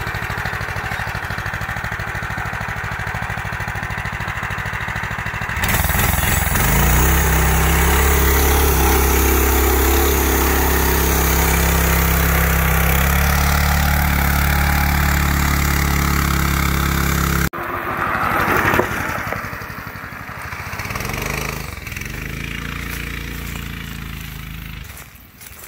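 Go-kart's DuroMax 440cc single-cylinder engine idling, then revved hard about five seconds in and held at steady high revs for about twelve seconds. After an abrupt cut it is quieter, revving up and down as the kart moves off. It doesn't sound like the centrifugal clutch is engaging as it should: the throttle pedal was hitting the tie rod, which kept the engine from full throttle.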